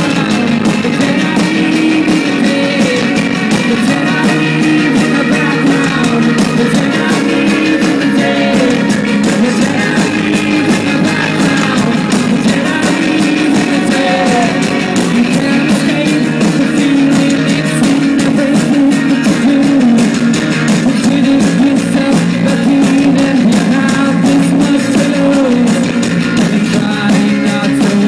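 Live rock band playing loudly: electric guitar and drums with singing over them.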